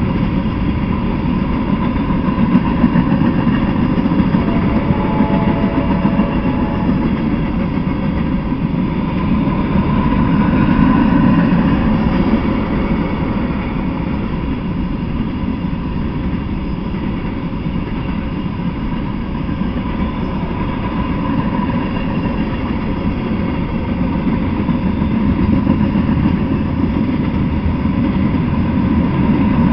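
Freight train cars, mostly covered hoppers, rolling past on the rails: a steady rumble of steel wheels on track that swells and eases a little as the cars go by.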